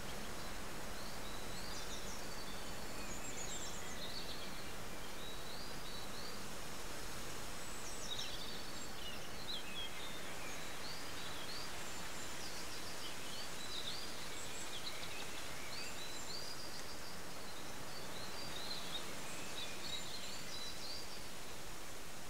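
Countryside ambience: a steady hiss of background noise with small birds singing, many short high chirps scattered throughout.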